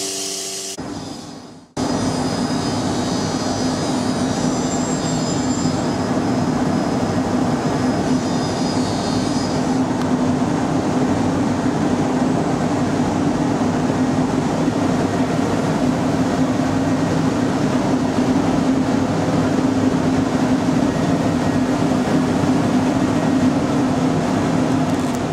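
CNC router spindle running steadily with a constant hum as it mills a wooden door, the cutter's noise continuous over the machine drone. The sound fades and cuts out briefly about a second and a half in, then resumes at a steady level.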